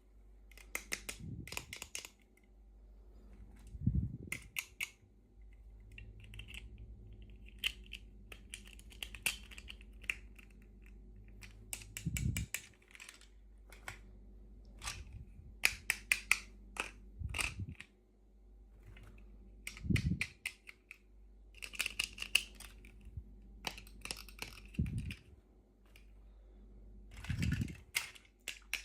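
Small plastic toy pieces and packaging being handled in an unboxing: clusters of sharp clicks and short crinkling rustles, with a dull thump against the table about every few seconds.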